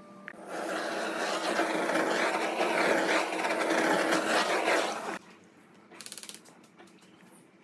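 A power tool working on wood, running loudly for about five seconds with a steady motor tone under the noise, then stopping. A brief rapid rattle follows about a second later.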